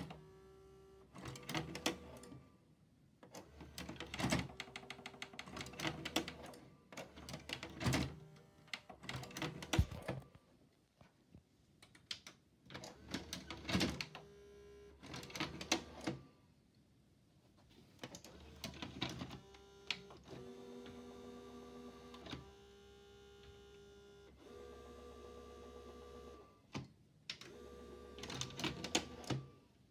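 A VHS player's tape-loading mechanism clicking, clunking and whirring in several bouts as a cassette is pushed in, drawn in and thrown back out. The player keeps ejecting the tape instead of playing it.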